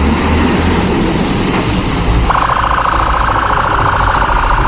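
Fire engine pulling away, its engine running with a deep rumble. About halfway through, a loud, steady buzzing warning tone from the truck comes on and holds.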